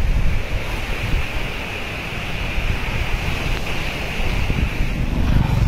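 Muddy floodwater rushing and churning around a bridge pillar in a steady hiss, with heavy wind buffeting the microphone.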